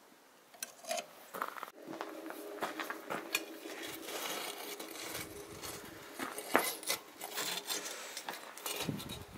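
Pieces of coal in a forge fire clinking and scraping as they are raked with a metal poker: a scatter of light clicks over a steady low hum that starts about two seconds in.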